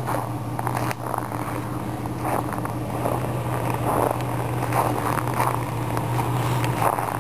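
An engine running steadily with a low drone, with irregular crunching steps in snow over it.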